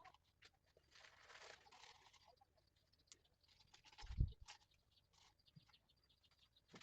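Faint razor strokes scraping over stubble, with scattered small clicks and a short low thump about four seconds in.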